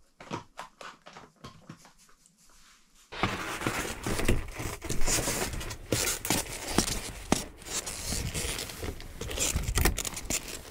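Movement over snow: a few faint clicks, then about three seconds in a sudden switch to loud, dense crunching and scraping.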